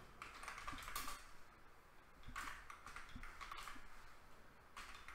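Faint clicks of a computer keyboard being typed on, in a few short runs of keystrokes.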